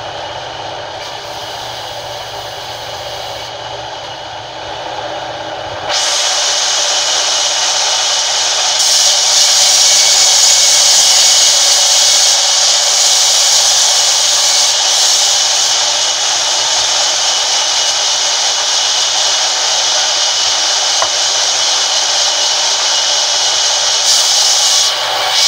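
Sawmill band saw ripping a long wooden plank fed by hand: a steady high hiss of the blade cutting, which gets louder and brighter about six seconds in.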